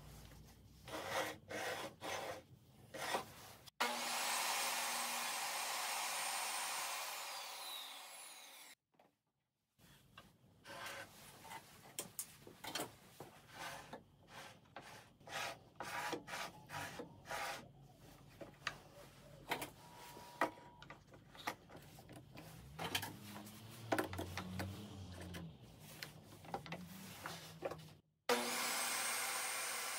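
Table saw running for about five seconds a few seconds in, its high whine falling as it slows before cutting off suddenly; in between, scattered clicks, knocks and rubbing of wood and a clamp being handled on the saw table. Near the end the table saw motor switches on and spins up with a rising whine.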